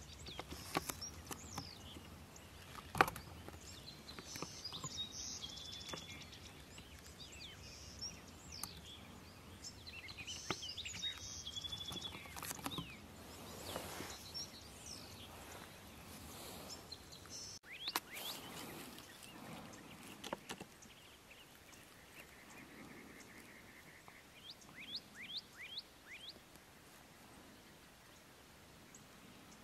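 Faint outdoor ambience with small birds calling: scattered chirps and whistled notes, and a quick run of about five short chirps a few seconds before the end. A single sharp click about three seconds in is the loudest sound.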